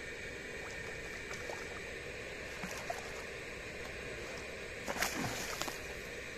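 A hooked fish splashing as it thrashes at the water's surface, with a brief burst of splashes about five seconds in over a steady hiss.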